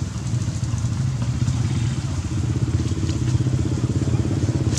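An engine running steadily with an even, fast low pulse and no change in speed, along with a few faint clicks.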